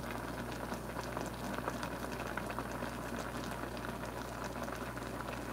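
A pot of herbal tea, fresh greens in water, boiling on the stove: steady bubbling with a busy crackle of small pops.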